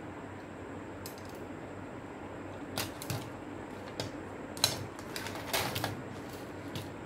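Small plastic and circuit-board parts of a disassembled portable CD player clicking and clattering as they are put down and moved about on a workbench: scattered knocks, the sharpest about two thirds of the way through, followed by a quick cluster of clatter, over a steady hiss.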